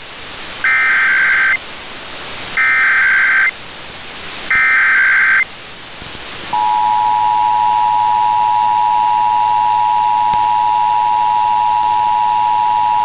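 Emergency Alert System header: three short bursts of screechy digital data tones about a second apart, then the EAS two-tone attention signal sounding steadily from about six and a half seconds in.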